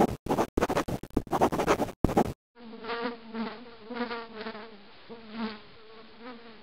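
Pencil scribbling on paper in quick strokes for about two seconds, then a low buzz that swells and fades several times.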